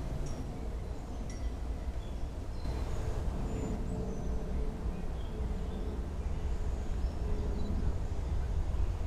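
Low, steady rumble of a distant approaching train, growing slightly louder, with faint high chirps of birds scattered through it.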